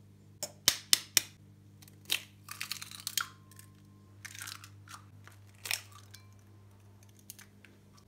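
Raw eggs cracked open over a ceramic bowl: a few sharp taps of the shell in the first second, a crackle as the shell is broken and pulled apart, then another sharp tap as a second egg is cracked. A faint low hum lies underneath.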